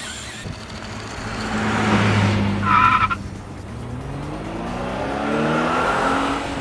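Race-car sound effects: a rushing engine noise that swells, a short tire squeal about three seconds in, then an engine rising in pitch as it speeds up.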